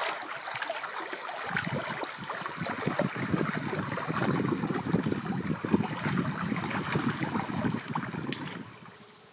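Small lake waves lapping and splashing against shoreline rocks, an uneven patter of little splashes that fades out near the end.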